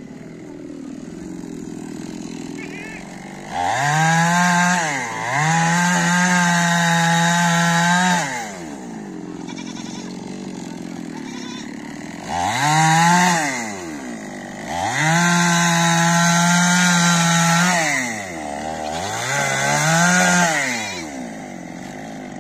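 Two-stroke chainsaw revved to full throttle five times, each burst holding a high steady note for one to three seconds before dropping back to a low idle.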